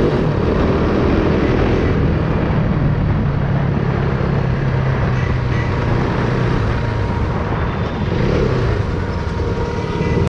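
KTM motorcycle engine running while riding along at about 35–45 km/h, a steady engine note that eases off briefly about eight seconds in and then picks up again.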